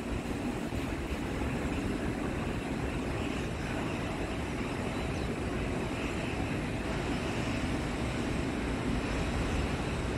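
Aircraft engines running with a steady, dense rumble that grows slightly louder toward the end.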